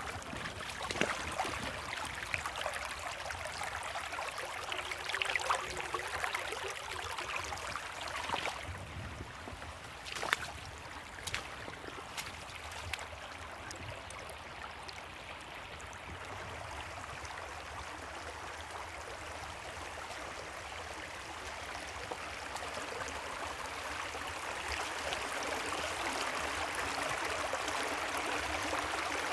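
Creek water running over rocks, a steady rushing and trickling that grows louder over the last few seconds. A few sharp clicks stand out near the middle.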